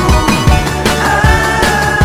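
Background music with a steady beat and a held melody line.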